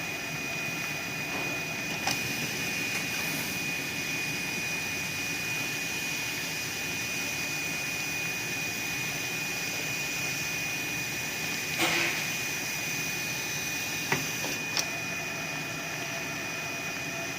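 Raincoat seam-sealing (sealer) sewing machine running steadily: an even whirring hiss with a constant high whine, broken by a few sharp clicks.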